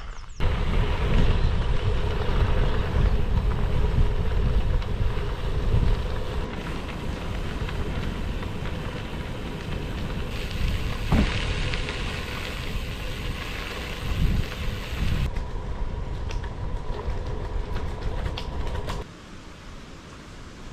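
Riding noise from a gravel bike moving along a gravel trail: a dense rolling roar with heavy wind rumble on the microphone and a faint steady hum. The roar drops off sharply near the end.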